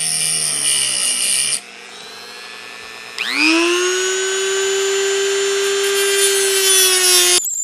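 Dremel rotary tool with a grinding wheel whining as it cuts notches into the curry comb's shank. It stops about a second and a half in, starts again about three seconds in, spins up quickly to a steady high whine, and cuts off near the end.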